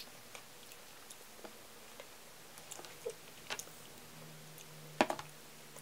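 Quiet eating sounds: a metal spoon scraping and tapping in a paper pint of ice cream, with small mouth sounds of eating, a few scattered clicks and a sharper clatter of clicks about five seconds in.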